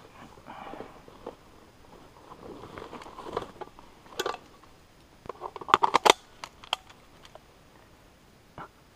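Footsteps crunching through dry leaves and twigs on a forest floor, with a quick run of sharp cracks or snaps about six seconds in and one more near the end.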